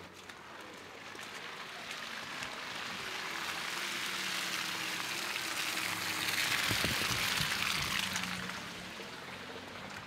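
A vehicle passing on a wet, snowy street: tyre hiss swells over several seconds, is loudest about seven seconds in, then fades, with a low engine hum beneath.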